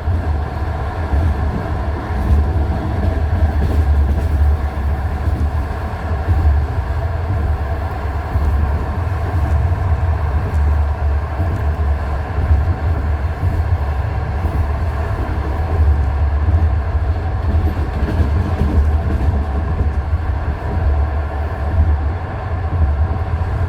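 Passenger train's wheels clattering over the rail joints of jointed (non-welded) track, heard from inside the carriage over a steady low rumble of the running train.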